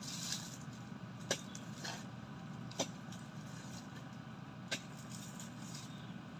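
A pickup engine idling steadily, with three sharp knocks, about one to two seconds apart, as a metal-tipped pole is jabbed into oil palm fruit bunches on the ground.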